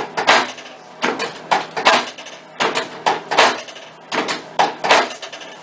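A rapid series of sharp slaps or knocks, about a dozen, many coming in quick pairs.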